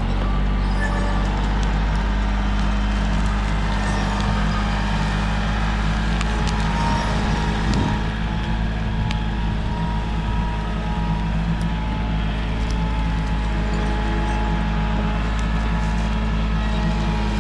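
Compact tractor engine running steadily under load as the front grapple pulls a log out, with a few faint clicks scattered through.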